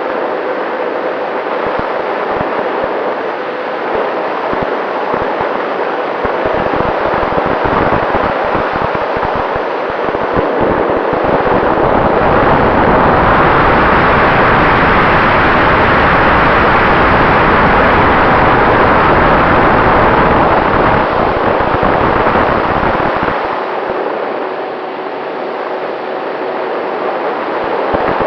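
90 mm electric ducted fan with an inrunner motor running, heard from a camera inside the model jet as a loud steady rush of fan and airflow. It swells louder for about ten seconds near the middle, then eases, with low wind buffeting on the microphone in the first ten seconds or so.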